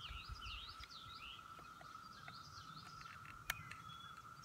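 Faint birds chirping over a steady high hum, with one sharp click about three and a half seconds in.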